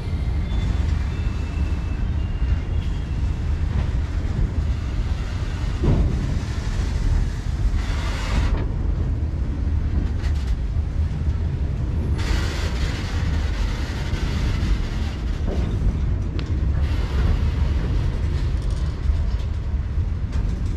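Freight train rolling on the rails: a steady heavy rumble of wagon wheels and couplings. A higher hiss builds about seven seconds in, cuts off sharply, then comes back a few seconds later.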